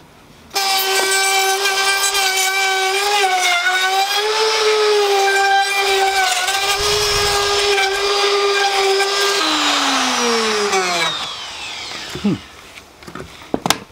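DeWalt compact router starting up and running at full speed with a high, steady whine as it is pushed along a router sled to flatten wooden planks, its pitch dipping briefly a few times under load. About nine and a half seconds in it is switched off and winds down with a falling whine, followed by a few light clicks.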